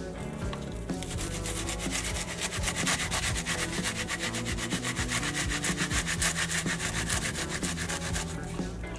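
A half onion being grated on a handheld stainless steel flat grater: rapid, even rasping strokes, several a second, without a break.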